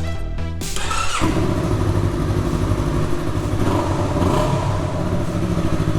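2016 Yamaha R3's 321 cc parallel-twin engine running through a newly fitted Akrapovic stainless-steel slip-on exhaust, taking over from electronic music about a second in.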